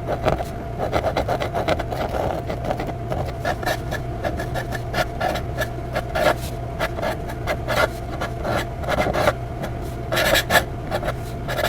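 Pen nib scratching across paper in quick, uneven strokes while writing out a calligraphy signature, over a steady low hum.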